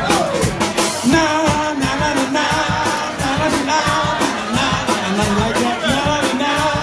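A live soul band with a horn section playing an upbeat number over a steady drum beat, with singing.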